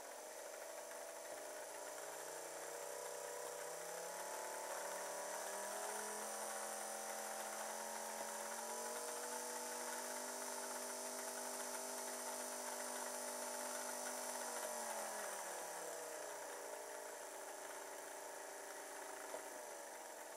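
Two small electric motors driving a model locomotive's wheels through their gearing on a provisional test run, whining as they speed up over the first several seconds, running steadily, then slowing to a lower speed near the end.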